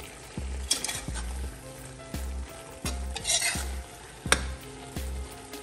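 A metal spoon stirs thick leafy vegetable soup in a metal pot, over a steady sizzle from the hot pot. The spoon knocks and scrapes against the pot several times, most sharply about four seconds in.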